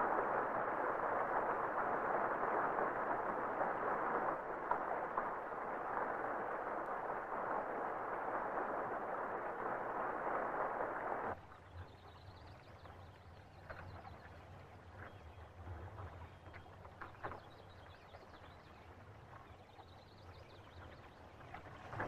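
Steady rush of river water pouring through a salmon counting weir. After about eleven seconds it cuts off sharply to a much quieter low hum with scattered faint clicks and a few thin high chirps.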